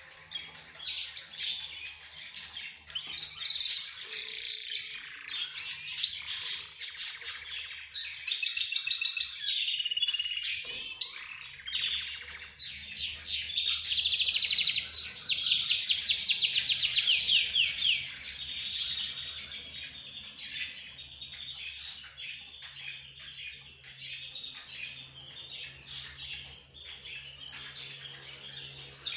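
A mixed group of cage birds (budgerigars, lovebirds, zebra finches and a canary) chirping and chattering over one another, with a burst of fast trilling about halfway through.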